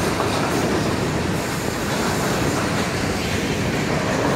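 Freight train boxcars rolling through a road crossing: a steady, even noise of steel wheels running on the rails.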